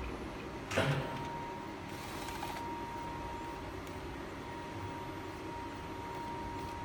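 Edible-ink flatbed printer at work printing on mints: its print-head carriage and feed mechanism running, with a sharp clack just under a second in and a brief whir about a second later. A steady thin tone runs underneath.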